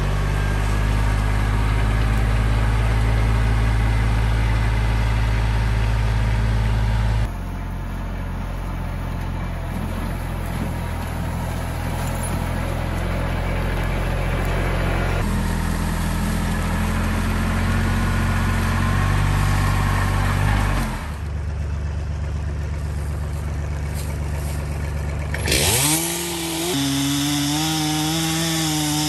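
Kubota compact tractor's diesel engine running steadily under light load, its sound shifting abruptly a few times. Near the end a gas chainsaw revs up and down.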